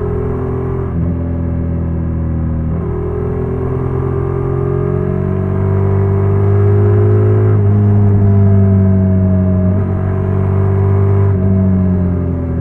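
Honda NC750X parallel-twin motorcycle engine running at steady revs, its pitch drifting slightly and shifting in steps a few times as the engine speed changes.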